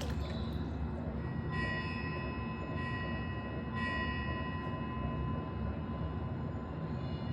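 Meditation white-noise soundscape: a steady low rumble with a thin, sustained ringing tone above it that brightens briefly three times.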